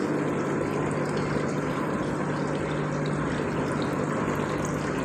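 Small electric water pumps of an automatic pani puri vending machine running with a steady hum.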